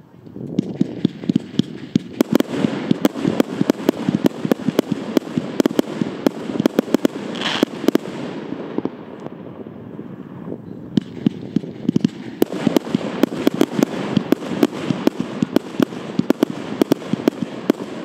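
Wolff 'Massive Reload' firework battery, a 144-shot, 25 mm calibre compound cake, firing in rapid succession: a dense stream of launch thumps and bursting shells. It thins out briefly about nine seconds in, then picks up again.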